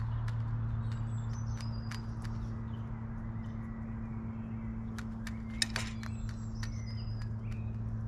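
Small birds chirping with short, high calls scattered throughout, over a steady low hum. Sharp clicks and taps come irregularly, with one louder knock about five and a half seconds in.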